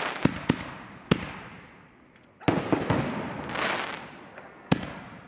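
Aerial fireworks bursting: a few sharp bangs in the first second, a loud bang about two and a half seconds in followed by quicker reports, and another near the end, with a hiss that swells and fades between the bangs.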